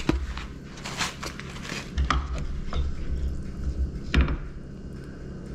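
Light clatter and knocks of dishes and utensils being handled on a kitchen counter, with one sharper knock about four seconds in, over a low steady hum.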